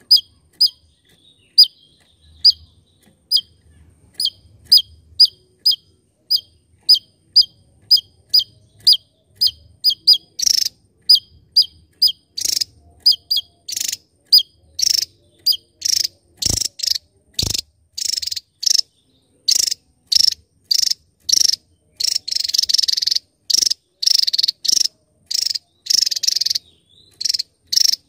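Javan tesia singing a long series of short, sharp, high notes, about two a second at first, then faster and louder after about ten seconds: the rapid-fire song prized by bird keepers. Two brief low knocks sound midway.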